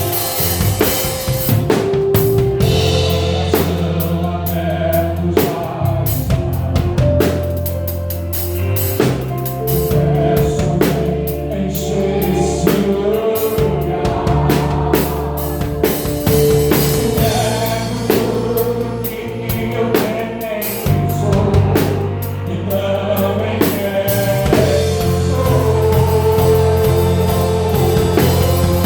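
Live gospel worship band playing, with a bass guitar holding long low notes and a drum kit keeping a steady beat; voices sing along at times.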